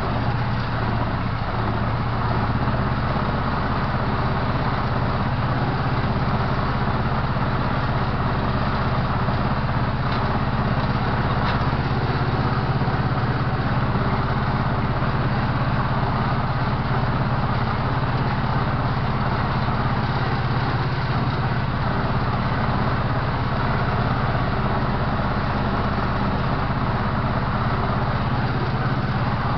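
Ursus C-330 tractor's two-cylinder diesel engine running steadily under load while mowing, heard loud from inside the cab.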